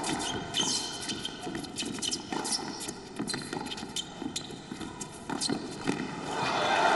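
Tennis serve and baseline rally: sharp racket-on-ball strikes about a second apart, with players' footsteps on the hard court. About six seconds in, the crowd starts cheering and applauding as the point ends.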